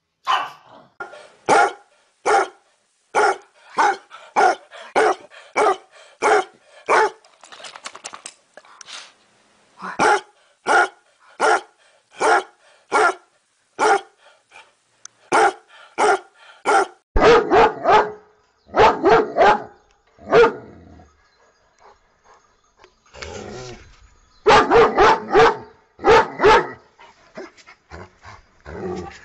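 Dogs barking: a long string of short single barks, about one to two a second, then louder, heavier barks in two clusters later on.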